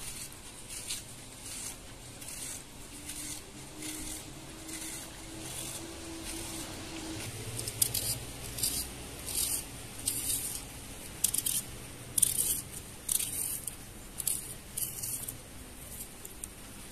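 Small knife slicing a raw onion held in the hand, a crisp cut about every three-quarters of a second, the cuts growing louder about halfway through.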